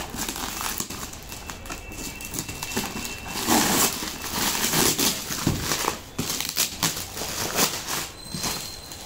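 Brown plastic packing wrap and tape crinkling and tearing as it is pulled off a cardboard box, in an uneven run of crackles and rips, loudest a few seconds in.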